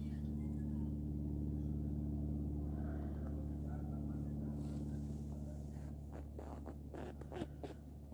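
A steady low mechanical hum, like a running motor, fading slowly, with a few short clicks and knocks in the last two seconds.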